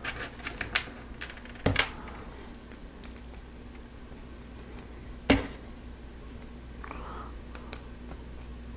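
Lego Technic plastic parts clicking as pins are pressed into beams and pieces snapped together: a quick run of small clicks at the start, a louder double click just under two seconds in, and the loudest, sharp snap a little after five seconds.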